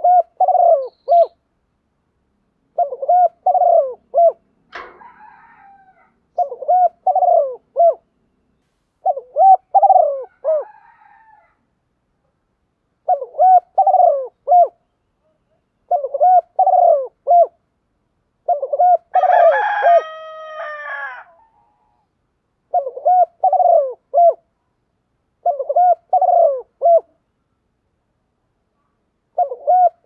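Caged spotted dove cooing its three- to four-note call over and over, one phrase about every three seconds, as a decoy bird calling to rouse wild doves. About two-thirds through, a longer call from another bird, with several stacked tones, overlaps one phrase.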